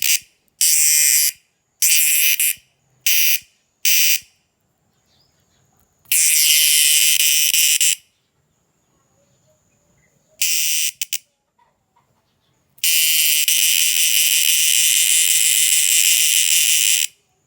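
An insect's loud, shrill buzzing call in bursts that switch on and off abruptly: four short bursts in the first four seconds, then longer ones, the last lasting about four seconds. A faint steady high whine continues in the gaps.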